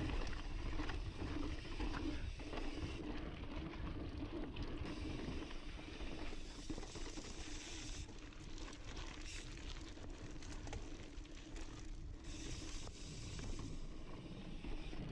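Intense Sniper cross-country mountain bike being ridden fast down rough singletrack, picked up by the camera on the bike: tyres rolling over stone and dirt with a steady rattle and clatter from the bike.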